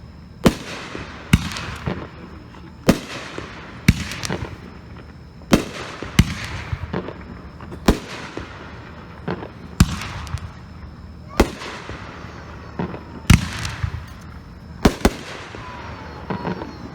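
Boomin Bulldog 'Amazing Willow' consumer firework cake firing a steady series of shots, a sharp bang about every second, some coming in quick pairs, each trailed by a short fading rush of noise.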